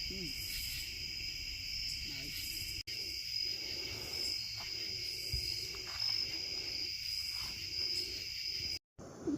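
Outdoor insect chorus: a steady high-pitched drone of many insects. It cuts out briefly about three seconds in and again near the end.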